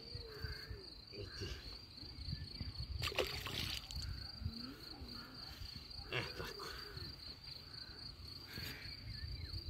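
Wind rumbling on the microphone and the rustle of a mesh keepnet being handled, over a steady high insect trill. A couple of louder brief rustles come about three and six seconds in.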